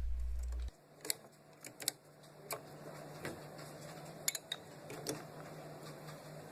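Light, scattered clicks and taps of a lab flask clamp and glass flasks being handled, about eight of them at irregular moments, over a faint steady hum.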